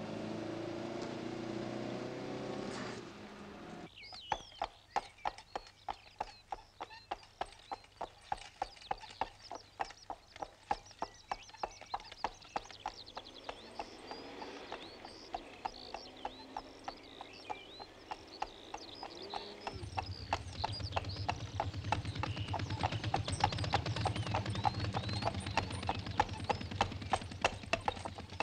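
Hooves of a horse pulling a wooden cart, clip-clopping at an even pace of about three beats a second, beginning about four seconds in, with high chirping over them. A low rumble joins about two-thirds of the way through. Before the hooves, a motor is heard running for the first three seconds and cuts off.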